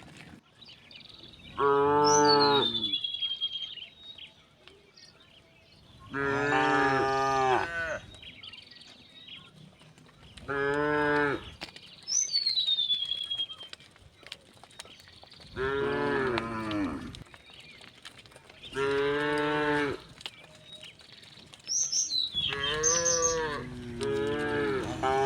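Cattle mooing again and again: about seven long moos a few seconds apart, with two cows calling over each other near the end.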